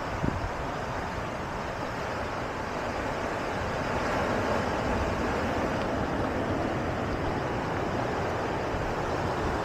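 Steady outdoor rushing noise, swelling slightly about four seconds in, with one faint click near the start.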